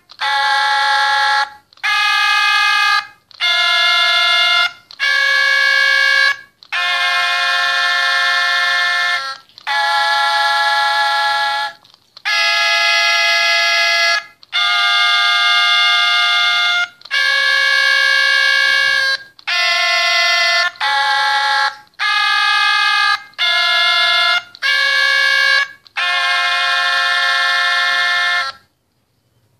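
Two squeezable singing plush toys (Sing-a-ma-jigs) singing together: about fourteen held electronic sung notes and chords, thin and tinny, each lasting one to two seconds with short breaks between them, stopping about a second before the end.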